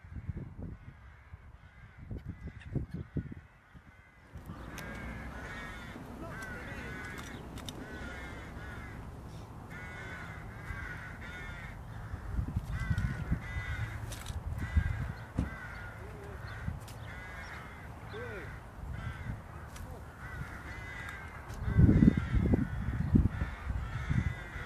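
Crows cawing, many repeated calls over a steady outdoor hiss, starting about four seconds in. A burst of low rumble near the end is the loudest sound.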